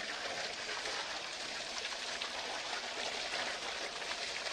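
Water gushing steadily from a pipe spout and splashing onto a shoe and the stone below, a constant hissing splash.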